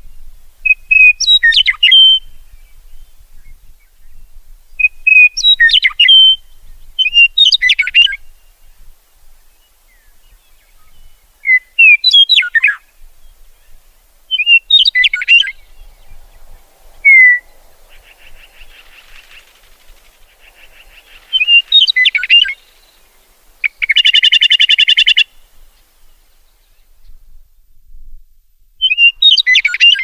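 Meadowlark song: short, complex whistled phrases repeated about eight times, a few seconds apart. A harsh, buzzy rattle is heard once about two-thirds of the way through.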